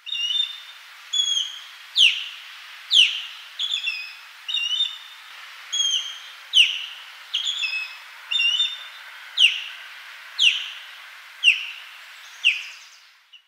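Osprey calling: a series of short, high whistled notes, about one a second. Sharp downward-slurred notes alternate with shorter, level chirps, over a faint background hiss.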